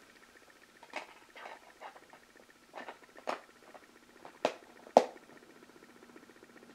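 DVD discs being put back into plastic DVD cases: scattered plastic clicks and knocks, the two loudest close together a little past the middle, over a faint steady hum.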